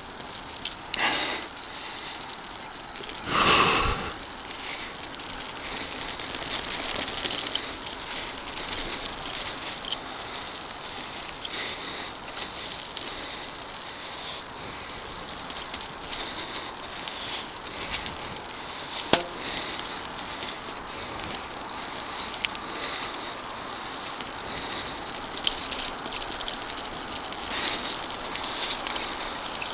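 Mountain bike riding fast over a dirt singletrack trail: a steady rush of tyre and rolling noise with the bike rattling and scattered sharp clicks and knocks over bumps. A louder rushing burst stands out about three and a half seconds in.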